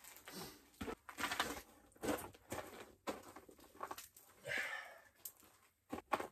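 Faint, irregular rustling and scuffing of clothing and boots on ice as a person moves around inside a small tent, with a longer rustle about four and a half seconds in.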